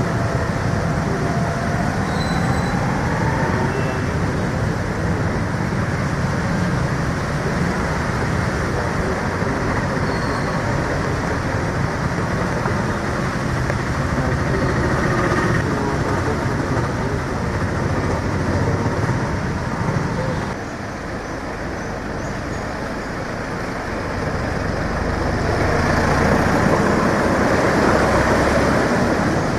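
Road traffic moving through a flooded street: a steady mix of motorcycle and car engines and tyres running through standing water. It dips in level about two-thirds of the way through and grows louder near the end.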